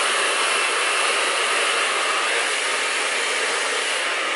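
Handheld hair dryer running steadily, blowing air through hair.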